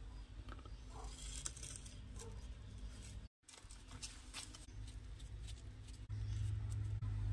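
Light rustles and small clicks of hands handling an incense-stick packet and matchbox. A low rumble of handling noise on the phone's microphone grows louder about two-thirds of the way in, and the sound drops out completely for a moment a little past three seconds in.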